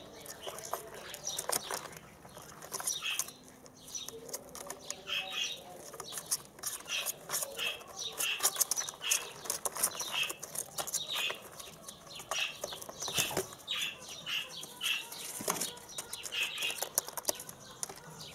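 White ringneck dove squabs preening and fluttering their wings, with feather rustling and wing flaps. Many sharp little clicks and short high chirps come through at irregular intervals.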